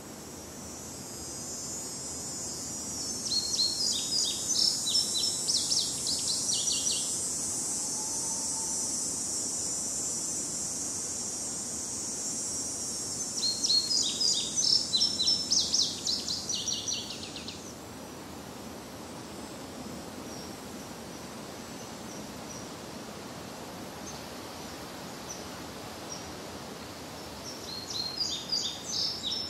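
A songbird singing a fast phrase of rapid high notes three times, roughly ten seconds apart, over a steady high hiss.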